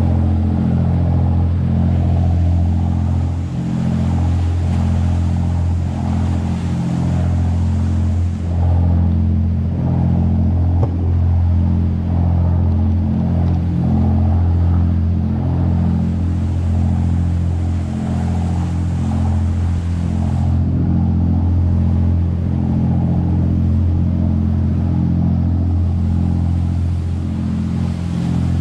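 Excursion boat's engine running steadily at cruising speed, a deep even drone with a rushing hiss over it.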